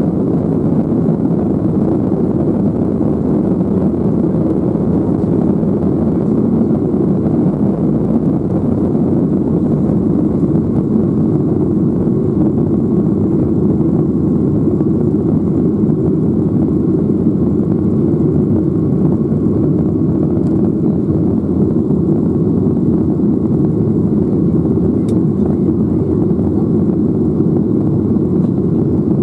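Inside the cabin of a Boeing 737-800, its CFM56-7B turbofan engines running at takeoff thrust: a loud, steady, low rushing drone of engine and airflow noise as the jet leaves the runway and climbs.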